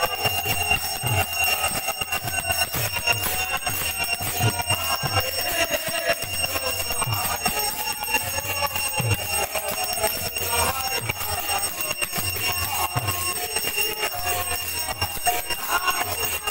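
Continuous loud clanging of arati bells and cymbals during a sandhya arati kirtan, with a low drum thump every second or two.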